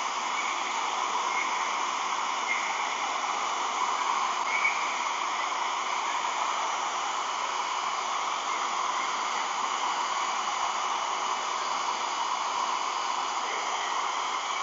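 Hair dryer blowing steadily, warming clear vinyl film so it can be stretched over a curved goggle lens. A few faint short squeaks sound in the first few seconds.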